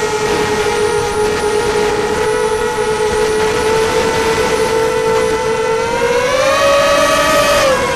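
Racing quadcopter's brushless motors and propellers whining at a steady pitch, then rising in pitch about six seconds in and dropping back just before the end as the throttle changes.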